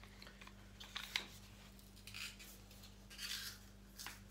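Faint clicks and short scraping rustles from a hand-held garlic press being loaded with a clove and squeezed, a few sounds about a second apart, over a steady low hum.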